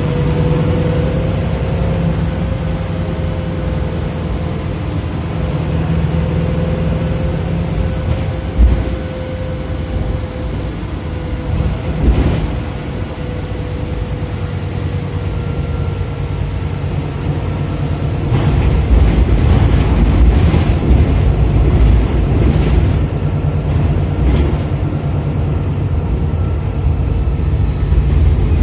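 Interior of a VDL SB200 single-deck bus with a Voith automatic gearbox on the move: the engine runs under a thin steady whine, with two sharp knocks in the first half. The engine note grows louder and heavier in the last third.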